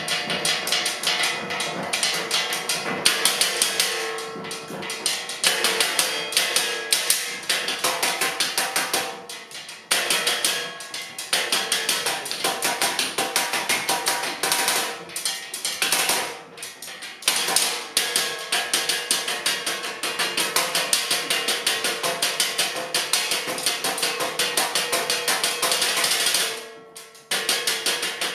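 Percussion trio striking a wooden tabletop with sticks and mallets in fast, dense rhythmic patterns. The playing breaks off briefly a few times, most plainly about 27 seconds in.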